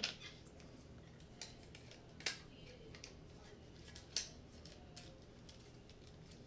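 Plastic Lego bricks clicking and tapping as they are handled and pressed together: a few sparse, sharp clicks, the two clearest about two and four seconds in.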